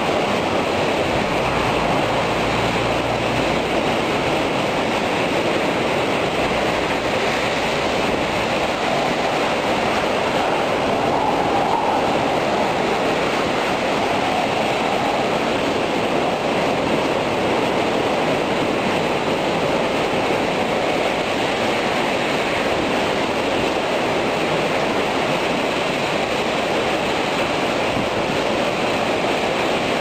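Heavy typhoon rain and wind pouring down steadily, an even, unbroken rushing hiss with no let-up.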